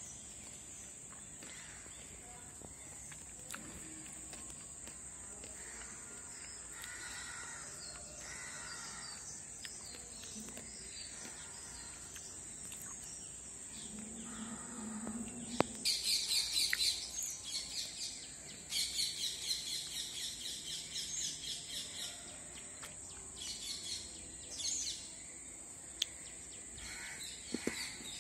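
Small birds chirping in quick repeated bursts, loudest and busiest from about halfway through, over a steady high-pitched whine.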